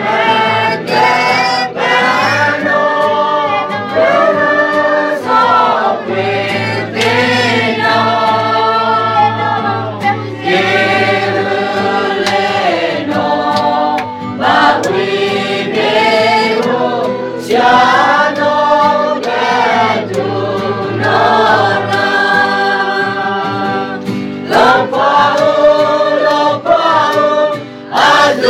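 A small mixed choir of men and women singing a hymn together in sustained phrases, with short breaks between the lines.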